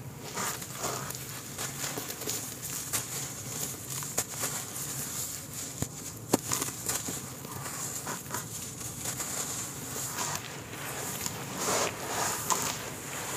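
Hands crushing and squeezing crumbly clay in a basin of muddy water: irregular wet squelches, crumbling and soft splashes, with one sharper crack about six seconds in.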